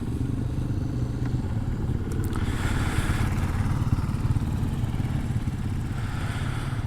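Single-cylinder GasGas 700 motorcycle engine running steadily while riding, with a brief rise of rushing hiss about two to four seconds in.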